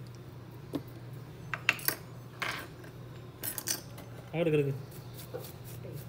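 Scattered light metallic clicks and clinks of small repair tools being picked up and set down on a workbench, over a steady low hum.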